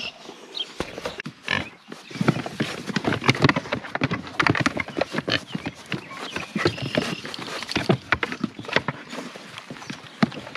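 Several pigs eating bread: rapid, irregular chomping and snuffling mixed with their hooves knocking on wooden pallets.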